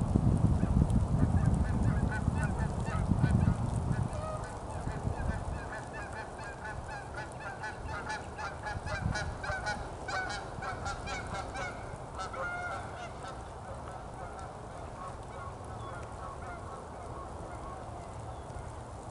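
Waterfowl calling, a long run of short calls in quick succession that thins out and stops about two-thirds of the way through. A low rumble fills the first few seconds.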